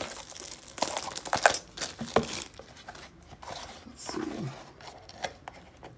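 Plastic wrapping on a trading-card box crinkling and tearing as it is pulled off, with scattered crackles and small clicks from handling the cardboard box, busiest in the first two seconds or so and sparser after.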